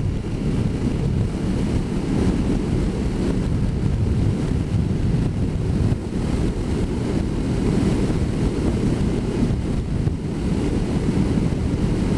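Steady wind rush and road noise on a motorcycle rider's microphone while riding.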